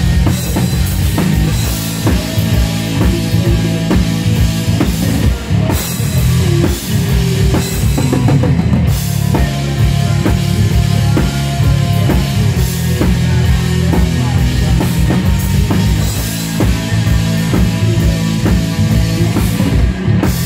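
Live rock band playing loud during a sound check, with the drum kit prominent and a steady kick drum and snare under the guitars and bass.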